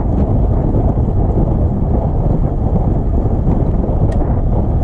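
Heavy, steady wind noise buffeting the microphone, a dense low rumble with no break.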